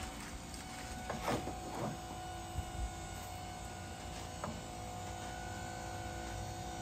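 Electric motor of a pickup-bed motorcycle lift running with a steady hum while the loaded platform tilts up. A few metal clanks and rattles come about a second in, and one more knock near the middle.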